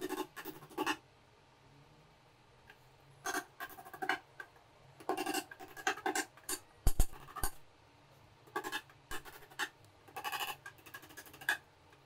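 Small hammer tapping nails through wire mesh into a wooden frame, in quick runs of light ringing taps with a few harder blows about seven seconds in.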